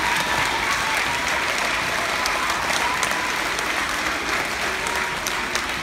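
A large crowd of schoolchildren and adults applauding in a school gym, with a few voices faintly mixed in; the clapping thins a little near the end.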